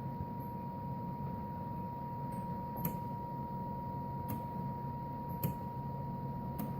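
Powered-up Drake L7 linear amplifier and its power supply humming steadily, with a thin steady high whine over the hum. Four light clicks come spread through it.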